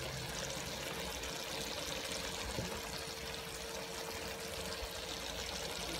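Coconut milk simmering and bubbling in a wok of malunggay leaves, a steady hiss as the sauce cooks down, with a faint steady tone underneath.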